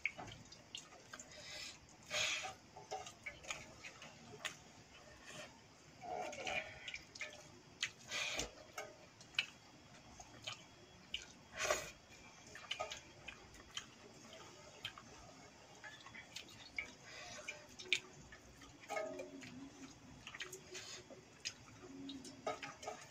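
Eating by hand from a steel pot of watery rice: irregular light clicks and taps of fingers against the steel and wet squelching as the rice is mixed and scooped, with short chewing and slurping sounds.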